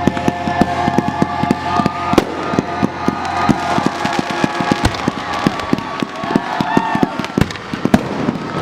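Fireworks going off in a rapid barrage: dense, irregular cracks and bangs, several a second, with high whistling tones from whistling fireworks running over them.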